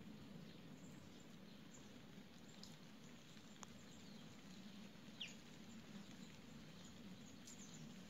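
Near silence: quiet outdoor ambience with a steady low hum, a few faint ticks, and one short, faint bird chirp about five seconds in.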